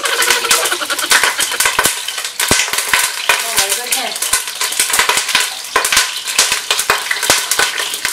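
Hot oil splattering in a Moulinex electric deep fryer as boiled pork fries: rapid, loud popping and crackling over a sizzling hiss.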